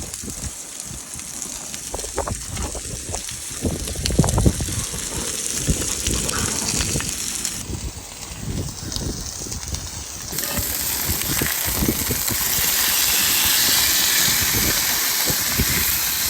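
Strong wind gusting and buffeting the microphone with irregular low thuds, over a steady hiss that jumps louder twice, in the middle and about two-thirds of the way through.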